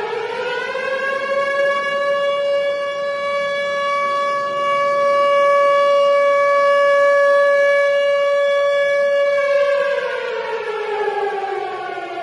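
Outdoor civil-defence warning siren of the kind sounded for a tsunami alert. It winds up in pitch over the first second or so, holds one steady wail for about eight seconds, then winds down, falling in pitch near the end.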